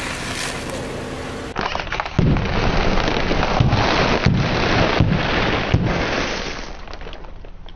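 Car tyre rolling over a row of sealed snack packets: dense crunching of crisps with several sharp pops as the bags burst, fading out near the end.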